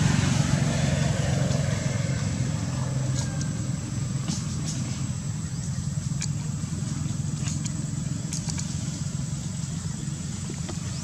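Low steady rumble of a motor vehicle's engine, slowly fading.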